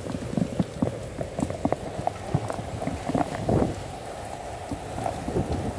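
Heavy downpour: many close raindrops striking in a dense, irregular stream over the steady noise of the rain.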